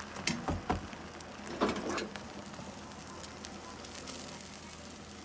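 Beaten egg frying in a little oil in a pan, with a faint steady sizzle and crackle. A few sharp knocks in the first second and a louder scrape or splutter about a second and a half in.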